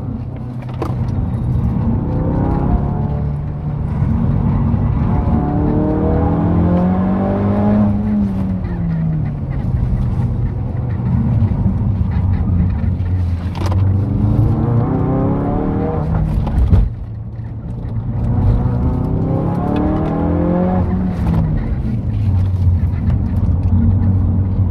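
Ford Focus RS's turbocharged 2.3-litre four-cylinder engine heard from inside the cabin, held in second gear during a slalom run. The revs repeatedly climb under throttle and fall away as the driver lifts and brakes for the next gate.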